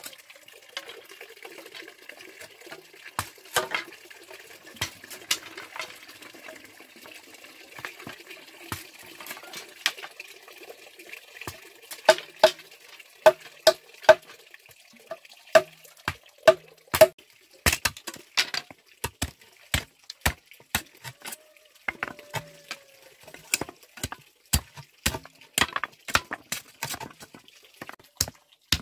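Machetes chopping and knocking into hollow bamboo poles: irregular sharp strikes, many with a short hollow ring, coming thicker and louder in the second half. A faint steady hiss sits underneath for the first half or so.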